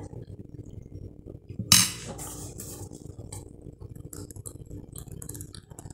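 One sharp clink of a metal spoon on a plate about two seconds in, then faint scattered small clicks and mouth sounds of eating.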